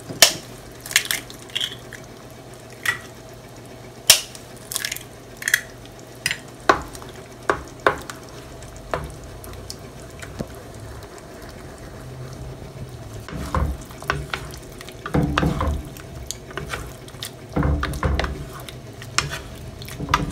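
A frying pan of sautéed bottle gourd being worked at the stove. For the first half there are sharp taps and clicks against the pan. After that come stirring and scraping in the pan, with some frying.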